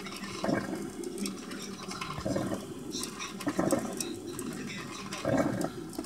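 KRUPS Aroma Control drip coffee maker brewing: irregular gurgling and sputtering as the heated water is pushed up to the filter basket, over a steady hiss.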